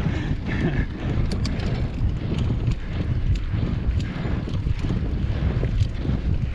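Mountain bike rolling fast along a dirt singletrack: steady tyre rumble on the trail with scattered clicks and rattles from the bike, and wind buffeting the microphone.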